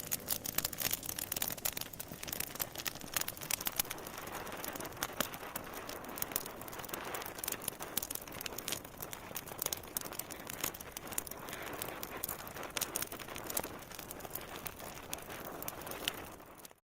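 Wood fire crackling, with a steady hiss and many irregular pops and snaps; it cuts off suddenly near the end.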